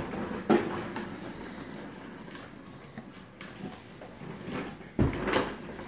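Plastic wheels of a toddler's tricycle and a ride-on toy fire truck rolling across a hard wood-look floor, with a few knocks and a heavier thump about five seconds in.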